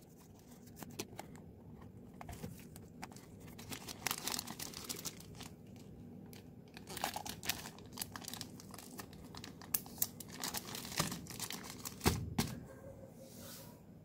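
Thin clear plastic bag crinkling and crackling in irregular bursts as hands handle it, with one louder knock near the end.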